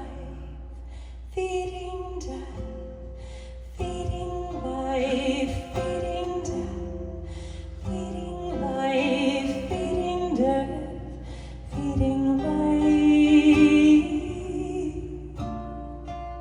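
A woman singing long held phrases with vibrato over a low steady drone, swelling to its loudest about three-quarters of the way through.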